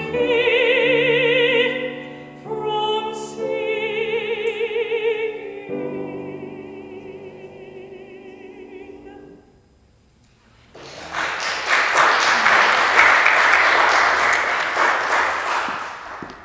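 Woman singing solo in a trained, operatic style, holding long notes with a wide vibrato; the last note fades out about nine seconds in. After a short pause comes about five seconds of loud, dense crackling noise.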